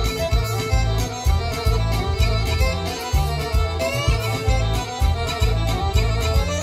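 Bulgarian folk dance music with a steady bass beat under a quick, busy melody, played for a line dance.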